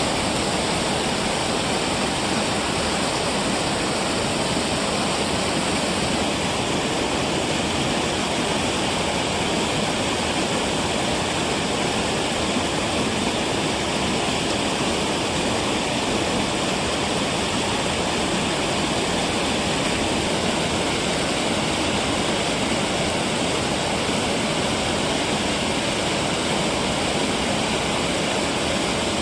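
Water pouring over a weir and churning in the turbulent pool below: a steady rushing sound.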